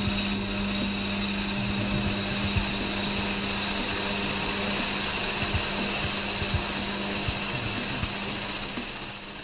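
Lathe motor running with a steady hum while a high-speed steel cutter, held in a tool post holder with the top slide set at an angle, turns a taper on the workpiece. The sound falls off just before the end.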